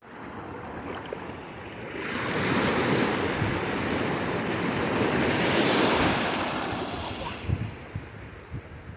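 Ocean surf: a wave breaking and washing up the shore, swelling about two seconds in and fading away near the end, with wind buffeting the microphone.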